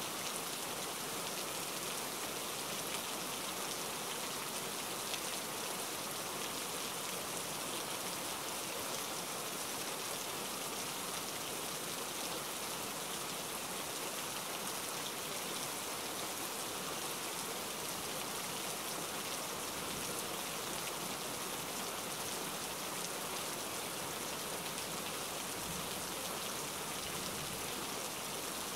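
Steady rain falling: an even hiss of countless drops that holds at one level throughout.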